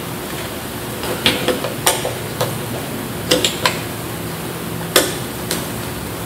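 Hand screwdriver driving screws into a moulded plastic plug housing: scattered, irregular clicks and ticks as the screws are forced into tight plastic holes.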